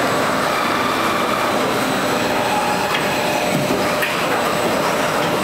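Steady mechanical whir and hum of an automated toy-assembly line with a robot arm and rotary table running, with a few faint clicks.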